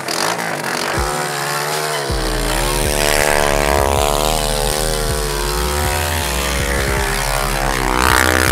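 Honda 240cc single-cylinder four-stroke dirt-bike engine in a Power Wheels go-kart, revving up and down as it drives, its pitch rising and falling several times. Background music with a deep bass line plays underneath.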